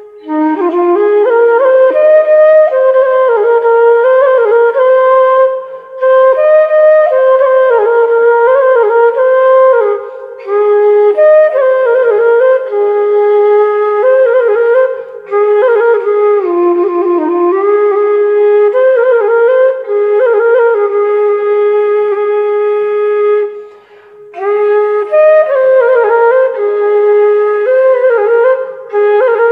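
Background music: a solo flute playing a slow melody in phrases of a few seconds, each followed by a short break.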